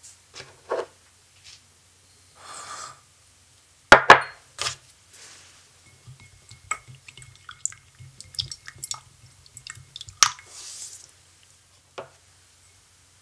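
Small spatula stirring hot water in a glass measuring cup: a run of light clinks against the glass, with a few sharper knocks of glass and utensil, the loudest about four seconds in.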